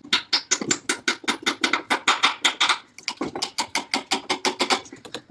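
Rapid series of sharp taps or knocks, about six a second, in two runs with a short break about three seconds in.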